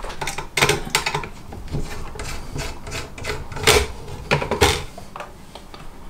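Precision screwdriver turning out the small screws of an iMac graphics card, with irregular scraping and light clicks of metal on metal.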